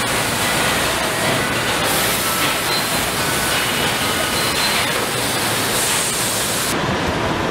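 Steady, loud noise of a car assembly line, with faint high machine whines coming and going; the highest hiss drops away suddenly near the end.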